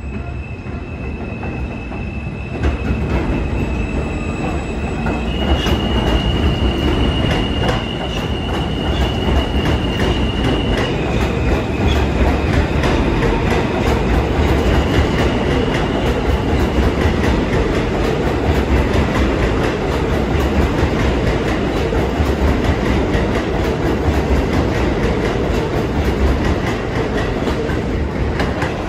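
New York City R160 subway train running past along the platform on the Culver express. Its wheels squeal in steady high tones through the first fifteen seconds or so, over a low rumble and rapid clickety-clack of wheels over rail joints. The sound gets louder as the cars come alongside.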